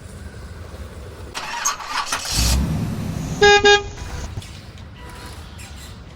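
A horn honks twice in quick succession, two short toots. Just before it comes a rushing hiss and then a brief low rumble.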